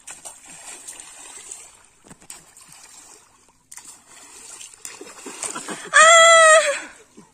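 Water splashing as hands slap and throw pond water, with scattered small splashes. About six seconds in, a loud, high-pitched shout rings out for under a second.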